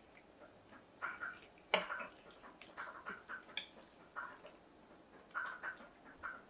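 Metal spoon digging and scooping through creamy baked mac and cheese in a ceramic baking dish: a run of short, soft, wet squelches and scrapes, with one sharp clink of the spoon on the dish nearly two seconds in.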